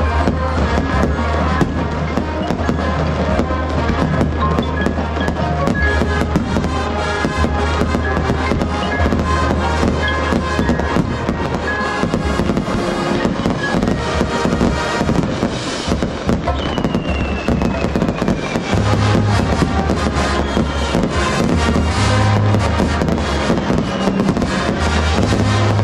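Marching band playing its show, brass over a deep sustained bass, with fireworks popping and crackling over the music.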